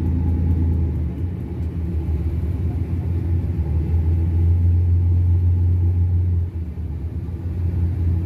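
Tugboat's diesel engine running, a steady low rumble heard on board, easing briefly about six and a half seconds in.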